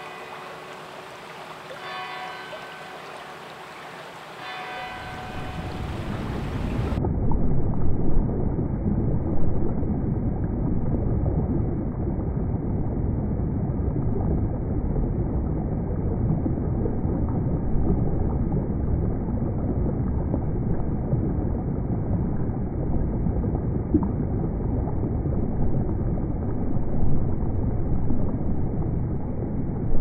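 A bell rings three strikes about two seconds apart over a faint babbling stream. About five seconds in, a loud, steady rush of fast-flowing river water, heavy in the low end, takes over.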